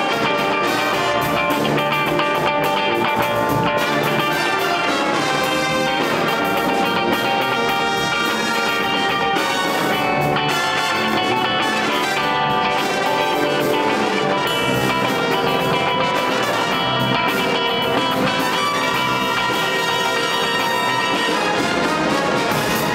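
Jazz band playing a funk tune live: electric guitar to the fore over piano, drums and a horn section of saxophones and trumpets, at a steady full level.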